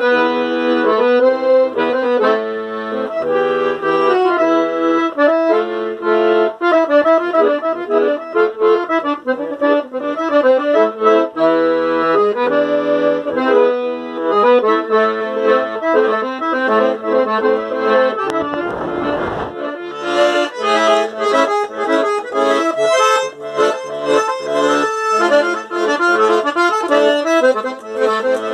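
Piano accordion playing a Northeastern Brazilian tune solo: a running melody in the right hand over pulsing bass notes, getting busier and brighter in the last third.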